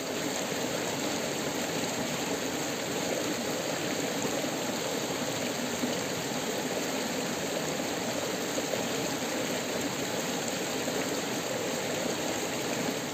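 Shallow stream running over rocks and stones: a steady rush of flowing water.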